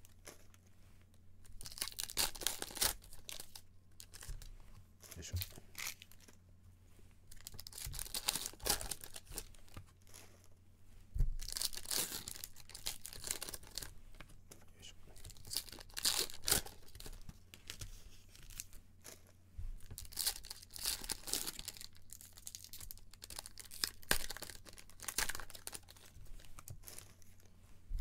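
Foil trading-card pack wrappers being torn open one after another and the cards handled, in irregular bursts of tearing and crinkling. A low steady hum runs underneath.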